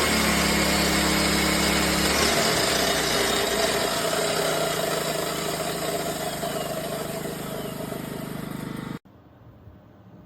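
ERAYAK 2400W inverter generator engine running under a chop saw load. About two seconds in, its steady hum drops away as eco mode idles it down, while the chop saw's motor whir slowly winds down. Everything cuts off abruptly near the end.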